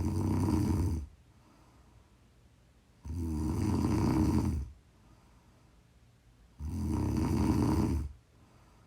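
Loud, regular snoring: three long snores about three and a half seconds apart, the first already under way, each lasting about a second and a half with a deep rumble.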